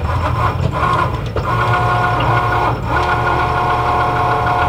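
Cricut electronic cutting machine at work cutting vinyl, its motors giving a steady pitched whine that stops and starts several times, the longest run starting about three seconds in.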